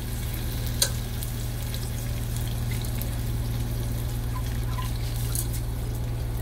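Rinsed, wet rice being poured from a glass container into a hot pot, with water trickling and dribbling as it goes in, and one small click about a second in.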